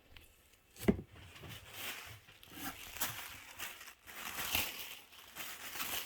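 Packaging rustling and crinkling in irregular handfuls as items are handled and packed, after a single knock about a second in.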